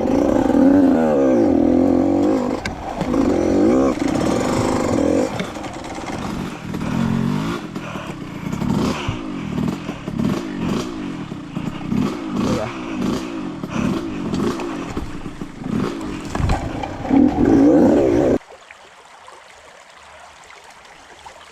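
85cc two-stroke dirt bike engine revving hard, its pitch rising and falling in quick repeated swoops, more than one a second, as the throttle is worked. It cuts off abruptly about 18 seconds in.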